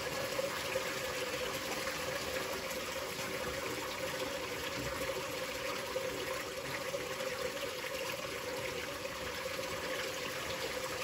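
Water driven by a UP 12.000 electronic V24 brushless DC centrifugal pump at full 130 W power, rushing and churning steadily into an aquarium tank, with a steady hum underneath.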